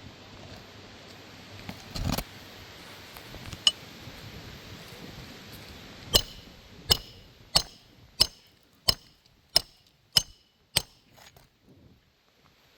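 Hammer driving a roofing nail into a shingle: a couple of scattered knocks, then a steady run of eight sharp, ringing strikes, about one and a half a second, stopping shortly before the end.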